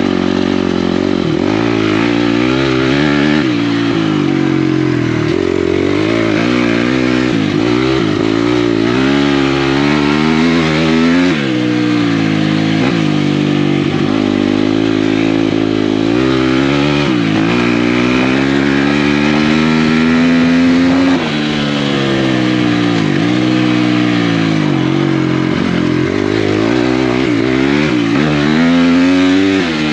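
Single-cylinder four-stroke off-road racing engine run hard, its pitch climbing under throttle and falling back over and over as the rider shifts and rolls off, with a short drop in loudness about two-thirds through.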